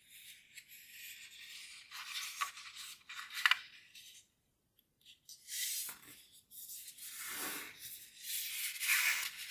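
A sheet of origami paper folded in half by hand and creased under the fingers: dry rubbing and rustling of paper, with one sharp crinkle about three and a half seconds in. After a short pause near the middle, more rubbing and rustling as the folded paper is handled again.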